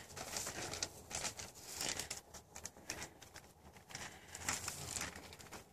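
Footsteps on a dirt path with a plastic bag rustling and crinkling while being carried, in a string of irregular short crackles.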